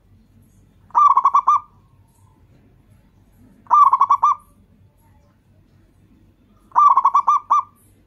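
Zebra dove (perkutut) cooing: three phrases of rapid, stuttering coo notes, each lasting about half a second, spaced about three seconds apart.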